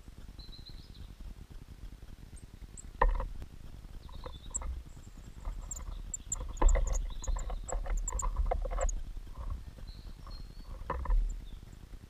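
Knocks, taps and scrabbling as a small tit lands on a wooden feeder tray and picks through the seeds and peanuts right by the microphone. There is a sharp knock about three seconds in, a busy run of taps in the middle, and another knock near the end, with thin, high bird calls over it.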